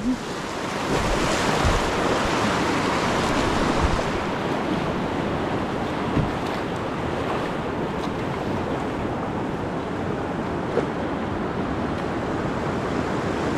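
River rapids rushing and splashing around a canoe, a steady whitewater noise, with wind buffeting the microphone and a few low thumps.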